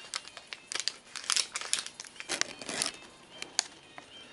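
A wrapper crinkling as it is handled, in irregular sharp crackles that come thick for the first three seconds and thin out to a few toward the end, with a brief soft rushing noise about two and a half seconds in.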